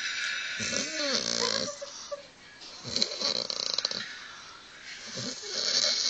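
A man snoring heavily: a long snore with a wavering pitch about a second in, a rattling, fluttering snore around three seconds in, and another snore near the end.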